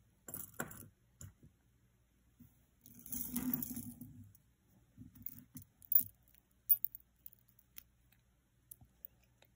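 Jewelry handled on a cloth-covered table: scattered light clicks and clinks of a metal bangle and glass-bead bracelet, with a rustle lasting about a second midway.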